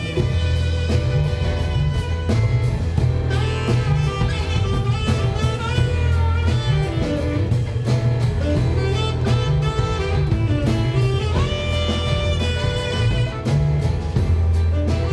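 A small jazz band playing live: drum kit keeping a steady beat, upright bass walking low, and acoustic guitar, with a lead melody gliding above.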